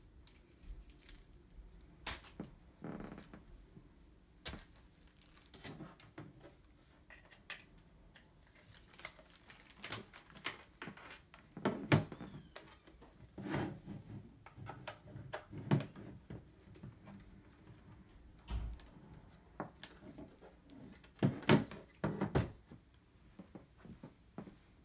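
Irregular handling noise from unpacking a label printer and its power adapter: scattered clicks and light rattles, with several louder knocks as parts are set down on a desk, the loudest about halfway through and again near the end.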